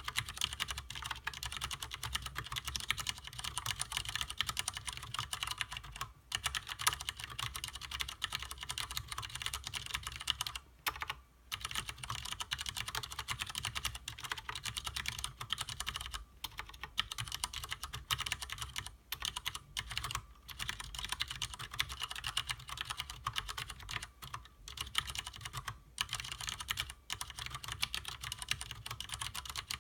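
Fast continuous typing on a Leopold FC750R mechanical keyboard with Cherry MX Clear tactile, non-clicky switches, with a few brief pauses.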